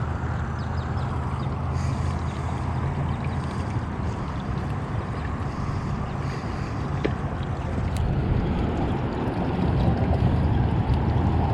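Boat engine idling with a steady low hum, under a haze of wind and water noise.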